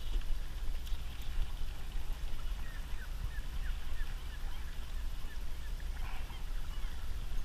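Steady wind and water noise on a small open boat, mostly a low rumble on the microphone. A quick run of faint, high chirps comes a few seconds in.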